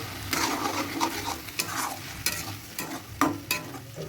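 Garlic, ginger, tomato and onion paste sizzling in hot oil with browned onions, stirred in the pan with irregular scraping and clicking strokes.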